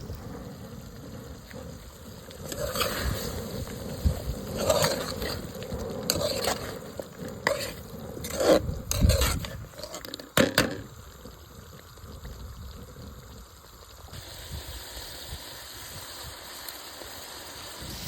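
Curried duck pieces sizzling as they fry in a pot, cooking down the water the meat has released. A spoon stirs them, scraping and knocking against the pot several times in the middle, then the sizzle goes on alone.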